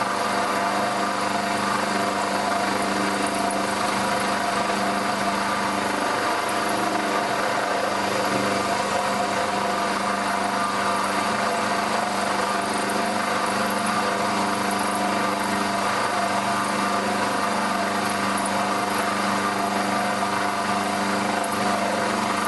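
Milling machine running a carbide end mill through a metal block in a steady 2 mm-deep slotting cut, a constant machine whine with the noise of the cutting. The cut is going smoothly.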